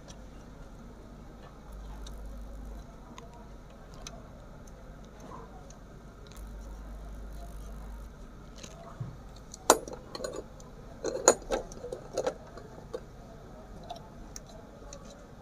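Handling noise from wiring work inside an amplifier chassis: scattered small clicks and taps of wires, leads and a tool against the boards and metal, with a sharp cluster of louder clicks about ten seconds in and again between eleven and twelve seconds, over a faint low hum.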